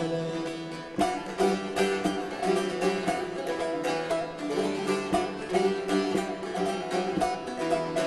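Two bağlamas (Turkish long-necked saz) playing an instrumental folk passage, with fast plucked notes over steady ringing drone strings. After a brief lull, the playing comes back strongly about a second in.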